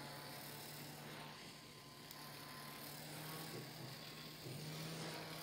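Small battery-powered handheld fan running: a faint, steady motor hum with a light hiss of moving air. The hum dips briefly in pitch about four seconds in.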